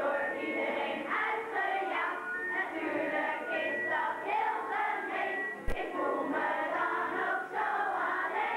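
Children singing together, a girl's voice to the fore. A single sharp knock cuts in a little past halfway.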